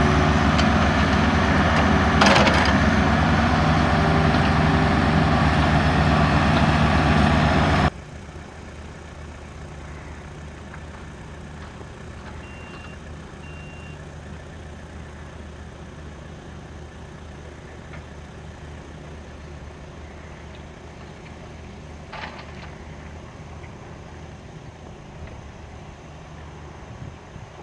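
Engine of a solar pile-driving machine running loud and steady, with one sharp knock about two seconds in. About eight seconds in it drops abruptly to a much quieter steady engine hum, with two short high beeps a little later.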